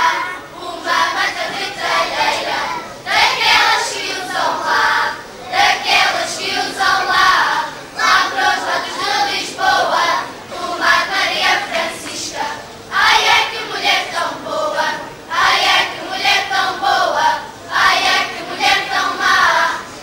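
Children's choir singing cante alentejano, the unaccompanied Alentejo folk song, in phrases of a couple of seconds with short breaks between them.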